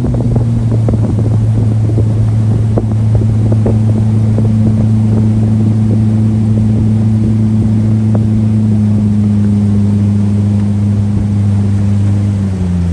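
Jet boat's engine running steadily under way, a loud, even hum whose pitch drops slightly near the end.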